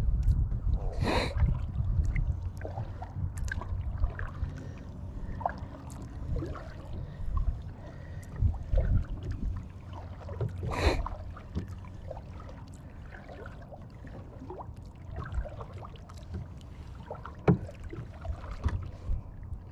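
Tucktec folding kayak being paddled: two loud splashes of water, about a second in and about eleven seconds in, with scattered small knocks and clicks. Under it all is a steady low rumble.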